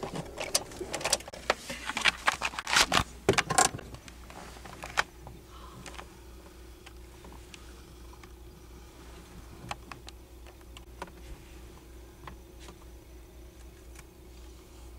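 Camcorder being handled: a quick run of clicks, knocks and rustles for about the first four seconds. Then only a faint steady hum with a few small clicks.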